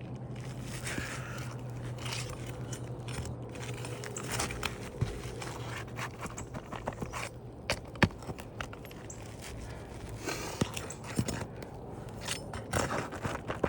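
Irregular scraping and sharp clicks of asphalt shingles being pried loose and their nails worked out on a roof, with one louder click about eight seconds in.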